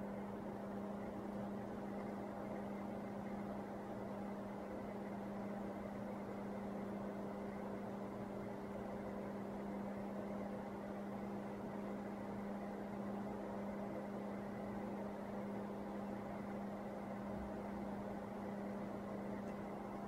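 A steady electrical hum: one strong low tone with fainter higher tones over a light hiss, unchanging.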